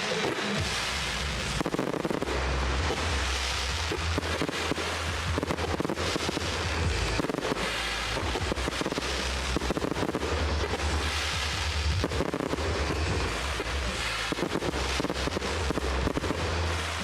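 Fireworks display: many bangs from bursting shells in quick succession, with crackling over a continuous low rumble.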